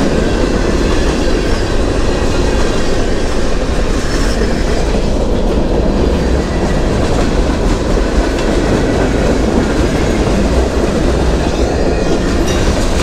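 Freight train rolling past close by: a steady, loud rumble of steel wheels on the rails.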